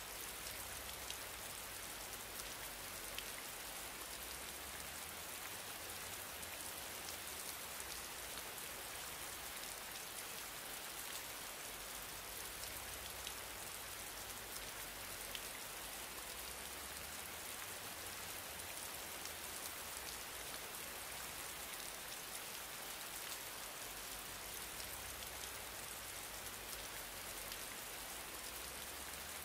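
Steady background hiss, brightest in the high end, with a faint low hum underneath.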